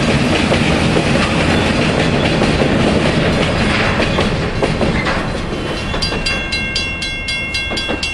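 Freight cars rolling over jointed rail, a steady rumble with clickety-clack as the wheels cross the rail joints. About six seconds in, as the end of the train passes and the rumble fades, a grade-crossing bell is heard ringing rapidly.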